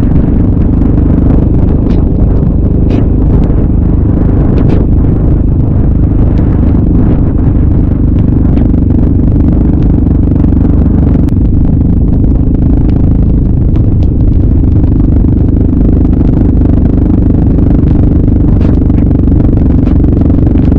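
Single-cylinder four-stroke sport ATV engine running steadily while riding, loud and close with a dense low rumble, with scattered small ticks and clatter over it.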